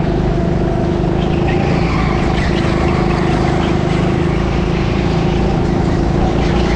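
Rental go-kart driving at speed, heard from onboard: a steady motor drone that holds a fairly even pitch, over rumble from the kart.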